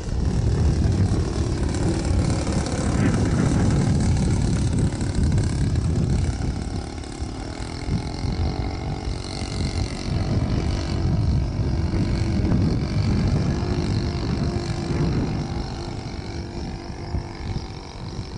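Saito 1.25 four-stroke glow engine of an RC Midwest Citabria model plane in flight, its drone rising and falling in pitch as the plane moves across the sky. Heavy wind rumble on the microphone runs underneath.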